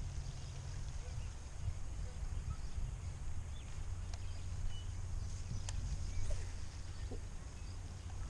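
Wind buffeting an outdoor camera microphone: an unsteady low rumble, with a couple of faint clicks about four and six seconds in.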